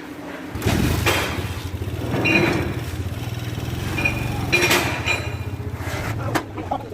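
An engine running with a rapid, even low beat that starts about half a second in, with a few sharp metallic knocks over it.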